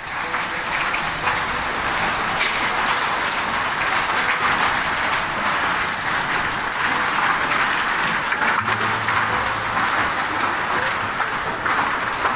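Heavy rain pouring down onto a wet concrete courtyard and roof, a steady dense hiss of countless drops striking hard surfaces.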